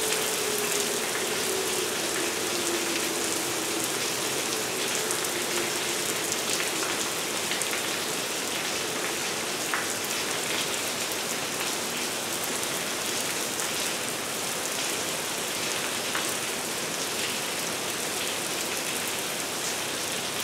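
Heavy rain falling steadily, a dense hiss with scattered drop patter. In the first few seconds a faint steady tone slowly slides lower and fades out.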